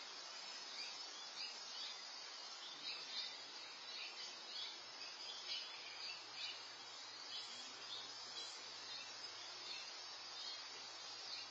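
Faint outdoor ambience: short, high chirps repeating irregularly, a few each second, over a steady hiss.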